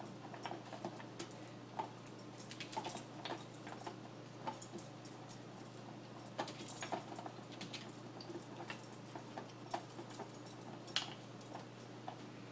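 A dog eating from an AiKiou Junior slow-feeder bowl, nosing its plastic lid round to uncover the kibble in the slots: soft, irregular clicks and rattles of plastic and food.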